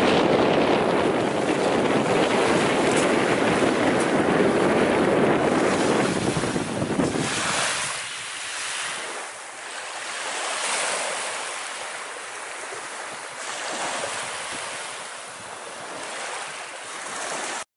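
Heavy wind buffeting the microphone over sea noise for the first seven seconds or so. After that the wind eases and Baltic Sea waves wash in, surging every two to three seconds.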